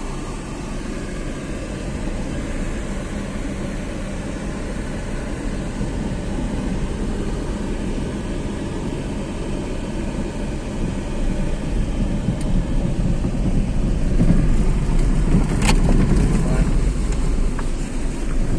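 Steady low rumble of a moving vehicle, growing louder in the last few seconds, with one sharp click about sixteen seconds in.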